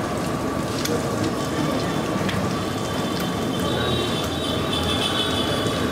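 Eggs frying in melted butter on a flat steel griddle, sizzling steadily over a low background rumble; a thin high whine joins in about halfway through.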